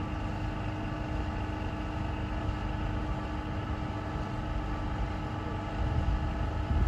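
Steady hum and low rumble of a river boat's engine machinery running, with several even tones held throughout.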